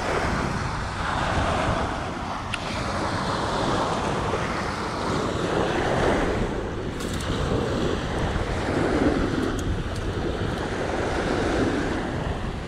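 Wind buffeting the microphone over waves washing onto a sandy shore, a steady rushing noise that swells and eases, with a few faint clicks.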